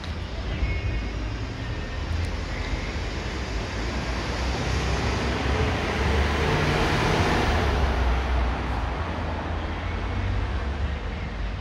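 A passing vehicle: a broad rushing noise that swells to a peak about seven seconds in and then fades, over a steady low rumble.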